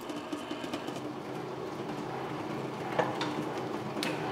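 Large planetary stand mixer running, its beater creaming butter and powdered sugar in a steel bowl: a steady motor hum, with two short knocks near the end.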